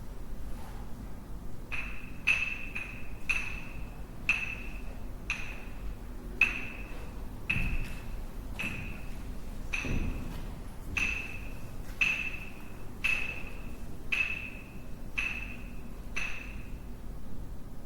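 Sticks struck together in a slow, fairly even beat, about one strike a second with a few quicker double strikes early on; each strike rings briefly with a clear, high pitched tone.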